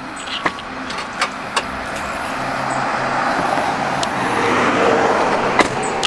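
A few sharp clicks and knocks, then a car's noise rising over a few seconds and easing off again.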